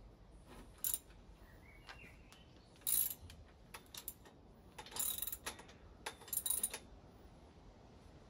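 Ratchet wrench clicking in several short bursts while a bicycle crank arm bolt is tightened onto the bottom bracket.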